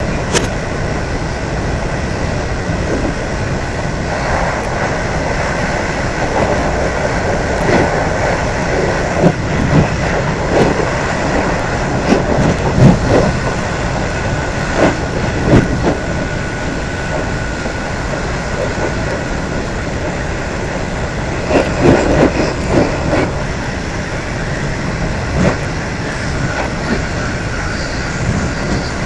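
Inside a moving electric train: a steady rumble of wheels on rail with a faint high whine, and knocks and clatter from the wheels on the track, thickest through the middle and again a little past two-thirds of the way through.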